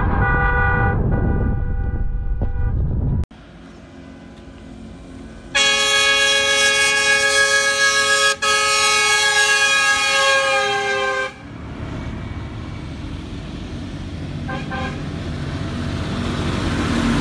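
Horns honking in short blasts over road noise from inside a moving car. After a cut, one long horn blast of about six seconds rings out as a convoy of large tractors approaches. It is followed by a tractor engine growing louder as a John Deere tractor draws near.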